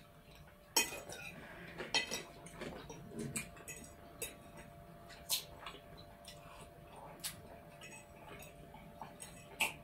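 Forks clinking and tapping against ceramic plates during a meal: scattered sharp clinks, about one a second, against a quiet background.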